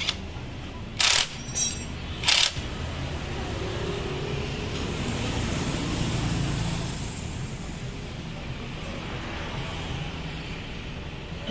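Two short, sharp hissing bursts a little over a second apart, then the low rumble of a passing motor vehicle swelling and fading.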